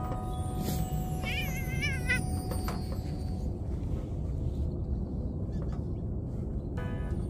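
A cat meowing once, a short warbling call about a second in, its pitch wavering up and down, over a steady low rumble. Background music comes back in near the end.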